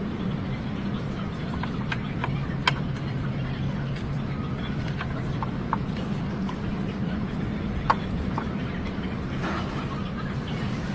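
A vehicle engine running steadily, with a few sharp knocks over it, the loudest about a quarter of the way in and again about three-quarters of the way in.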